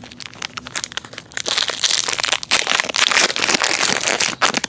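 Foil baseball card pack wrapper being crinkled and torn open by hand. Scattered crackles at first, then dense crackling from about a second and a half in.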